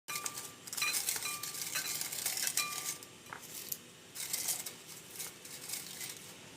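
A spoon stirring in a cup or glass: several sharp clinks against the side in the first few seconds, each ringing briefly, then scraping swishes of the spoon going round.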